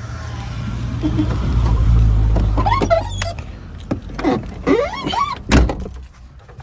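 A car door is shut with a single loud slam about five and a half seconds in, over the low rumble of a vehicle; after the slam the outside noise drops away.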